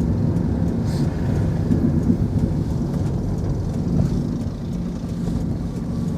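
Steady low rumble of engine and tyre noise heard from inside a moving vehicle.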